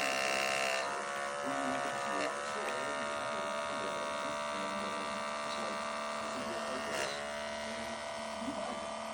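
A small electric motor buzzing steadily, dipping slightly in pitch a few times.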